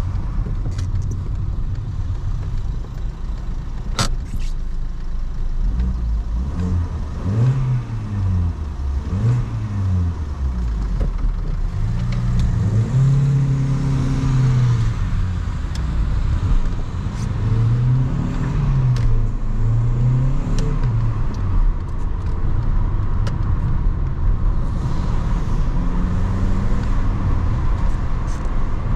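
Volkswagen Golf V 1.6 FSI naturally aspirated four-cylinder petrol engine, heard from inside the cabin while driving, over steady road and tyre rumble. The engine note rises and falls several times as engine speed changes. There is a single sharp click about four seconds in.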